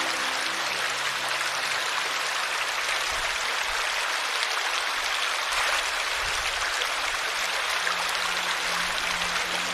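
Steady rush of running water, as from a stream, even and unbroken; faint low sustained music tones come back in near the end.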